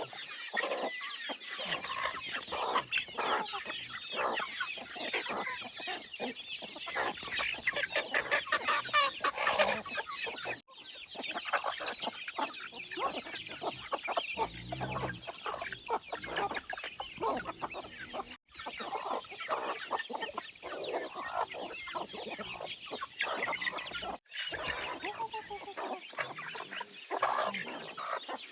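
Chickens clucking, many short calls overlapping.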